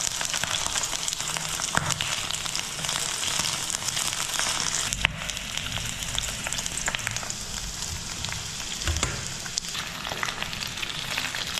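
Small fish frying in hot oil in a pan: a steady sizzle and crackle with a few sharper pops of spitting oil.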